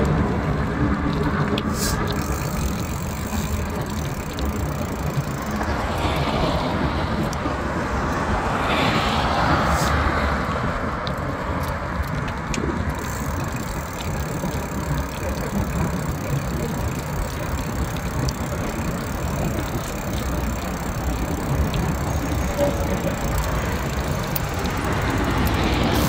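Dense city road traffic: a steady wash of engine and tyre noise from many passing vehicles, with a few faint clicks.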